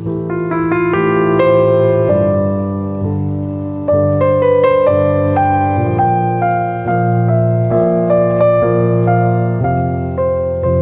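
Background piano music: a melody of single notes over held low chords.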